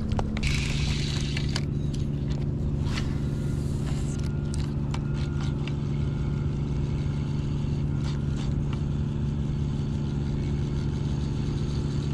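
A motor running with a steady low hum, the boat's engine or motor while the angler fishes. A short hiss comes near the start, and there are a few faint clicks.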